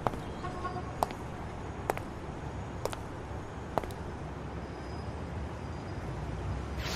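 Booted footsteps on paving, about one step a second, ending about four seconds in, over a steady low outdoor rumble like distant city traffic.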